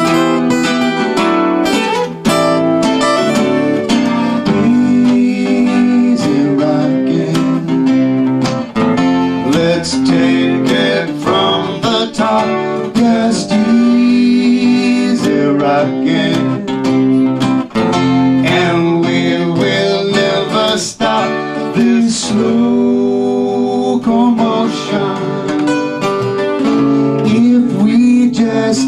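Two acoustic guitars strummed and picked together, with two men's voices singing a song in harmony.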